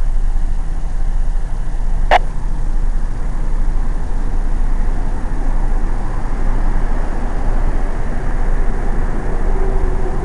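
Steady low rumble of a vehicle, with a single sharp click about two seconds in and a faint steady hum coming in near the end.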